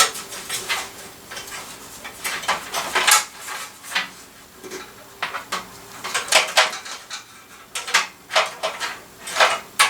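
Irregular clicks, taps and rattles of SATA data cables being handled and sorted, their small plastic connectors knocking against each other and the computer case.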